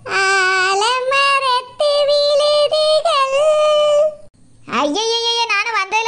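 A high, chipmunk-like cartoon voice singing long held notes that waver and slide in pitch, with a short pause about four seconds in.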